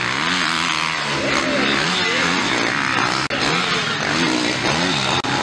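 Motocross dirt bikes racing, their engines revving hard and backing off again and again, the pitch rising and falling about once a second as the riders work the throttle. The sound drops out abruptly for an instant twice, about three seconds in and near the end.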